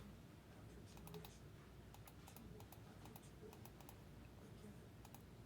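Faint, irregular clicking of a computer keyboard, key presses scattered through the stretch.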